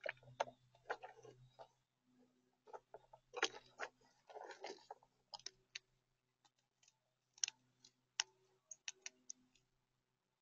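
Irregular clicks and short rustles of acorns knocking together as a gray squirrel shifts and digs about in a plastic tub full of them. The clicking stops shortly before the end.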